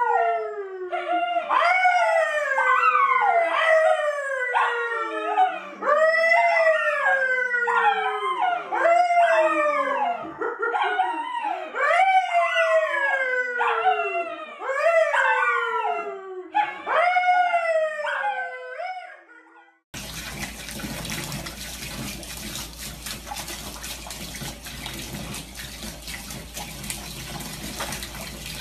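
A dog howling in a long run of calls, about one a second, each starting high and sliding down in pitch. After about twenty seconds the howling cuts off and a steady rushing noise takes over.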